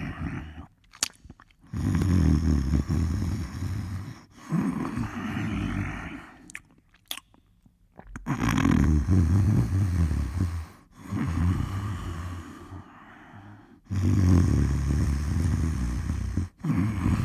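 A person snoring in a slow, regular rhythm: three long, loud, low snores, each followed by a shorter, softer one, with brief quiet gaps and a couple of small clicks between cycles.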